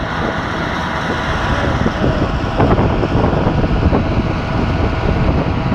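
Wind from a close tornado, a loud continuous rush buffeting the microphone with a heavy low rumble.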